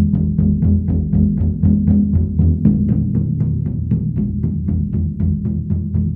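Large Motherdrum, a big horizontal frame drum, struck with two mallets in an even beat of about five strokes a second, its deep tone ringing on steadily between the strokes.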